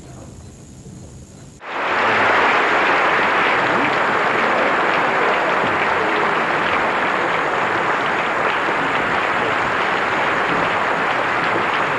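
A large audience applauding steadily, starting abruptly about a second and a half in after quiet room sound.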